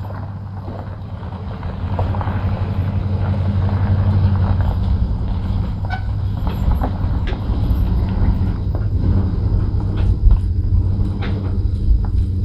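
Sawmill's engine running steadily, growing louder about two seconds in, with scattered clicks and knocks over it.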